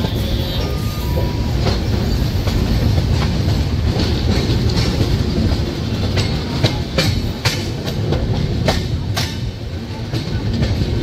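Passenger express train's coaches rolling over the track, heard from the open doorway: a steady rumble under irregular clicks of wheels over rail joints and points. The clicks come thickest a little past the middle.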